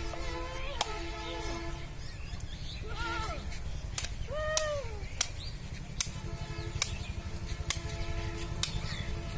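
A goat bleats three times in the first half, each call rising and falling in pitch, over a steady hum. Sharp knocks, about one a second, come from a large knife chopping into a hanging goat carcass.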